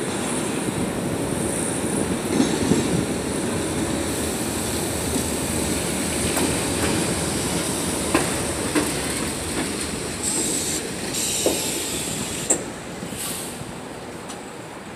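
R68-series subway train pulling into an elevated station, its steady rumble broken by sharp wheel clacks over rail joints. A high squeal from the wheels and brakes comes in as the train slows near the end.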